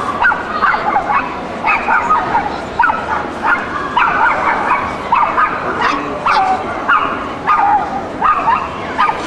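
A small dog yapping over and over, about two sharp yaps a second, over a steady background hubbub.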